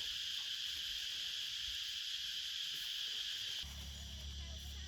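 Steady night chorus of crickets or other insects chirring. About three and a half seconds in, the sound changes abruptly: the insect chorus drops and a steady low hum comes in.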